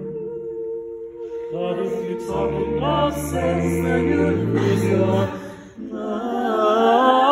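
A cappella group of men and women singing in harmony. A held chord comes first, then bass notes enter underneath it. The sound dips briefly about five and a half seconds in, and a louder lead line with wavering pitch comes in near the end.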